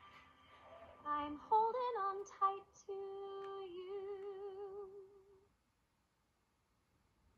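A singing voice in a song carries a short melody and ends on a long held note with vibrato. It stops about five and a half seconds in, leaving near silence. The song is played through a laptop's speakers.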